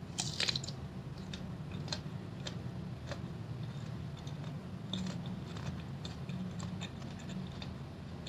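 Close-up chewing of crunchy fresh fruit: a crisp bite just after the start, then scattered small crunches and mouth clicks.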